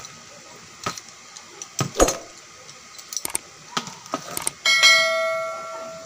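A metal tool clicking and knocking against a ceiling fan's shaft and ball bearing as the jammed bearing is worked off, about half a dozen sharp knocks. Near the end, a short metallic ring fades away over about a second.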